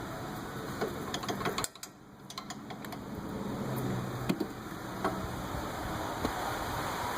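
Scattered light metallic clicks and clinks of hand tools and brake parts being handled while a rear brake caliper and its mounting bracket are taken off.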